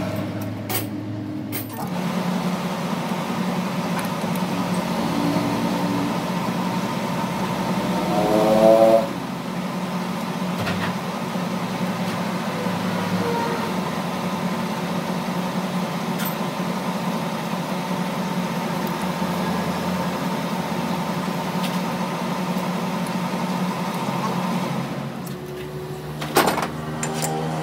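Metal lathe running with a steady hum while a steel shaft is faced with a tool bit and then drilled from the tailstock chuck. Its pitch rises briefly about nine seconds in. It drops away near the end, followed by a sharp click.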